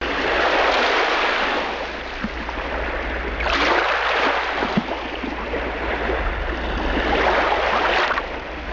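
Ocean surf, waves washing in and out, swelling three times over a steady low hum.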